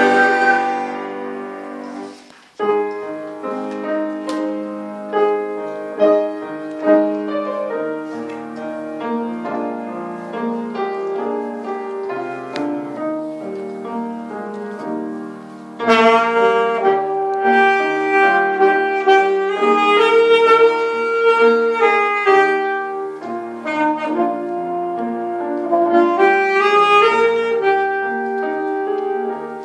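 Saxophone playing a slow melody over piano accompaniment. The music dips briefly about two seconds in, continues more softly, then comes in louder at about sixteen seconds.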